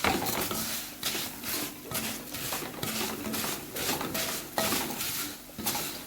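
Vermicelli frying in onion oil in a pot, sizzling, while a spoon stirs it in repeated scraping strokes about two a second. The vermicelli is being browned before the rice goes in.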